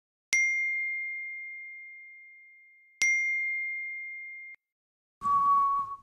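Smartphone notification chime: a single bell-like ding that rings out and fades, sounded twice about two and a half seconds apart. Near the end comes a short, steady, buzzier tone.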